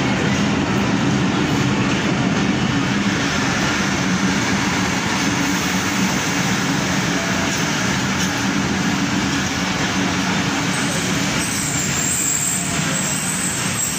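Passenger train coaches rolling past along a station platform, with a steady rumble of wheels on the rails.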